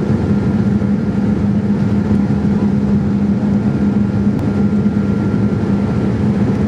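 Steady cabin noise inside a Boeing 787-8 Dreamliner in flight on its descent to land: an even rush of airflow with the engines' steady low hum and a fainter higher tone running through it.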